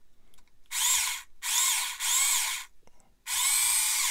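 Small pistol-grip hobby drill with a fine twist bit drilling a hole through a plastic model kit part, run in four short bursts with a high motor whine that rises and falls in pitch in each burst.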